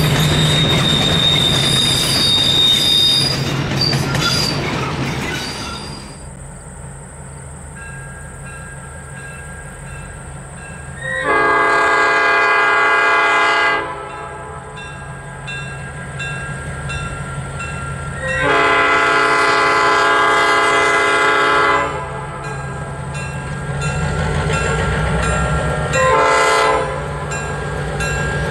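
Locomotive air horn blowing two long blasts and a short one, the start of the long-long-short-long grade-crossing signal. Underneath, the train runs with a steady engine drone and rail noise, loud for the first few seconds and then easing off.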